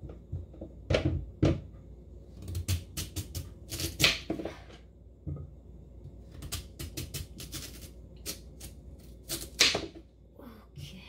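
Kitchen knife cutting a peeled sweet potato on a wooden cutting board: the blade knocks through onto the board in irregular strokes, some single and some in quick runs of several with short pauses between.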